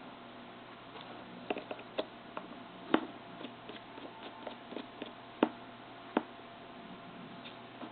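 Irregular small clicks and taps from handling a mobile phone and its tiny screws with a very small screwdriver. The sharpest taps come about three seconds in and twice more a couple of seconds later.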